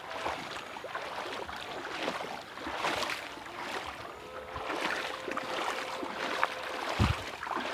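Footsteps and rustling of people walking through jungle undergrowth, with strokes about once a second. A faint held tone sounds in the middle, and a heavy thump near the end is the loudest sound.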